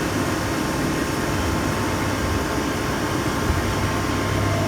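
A CNC machine running, a steady low hum and whir with no breaks.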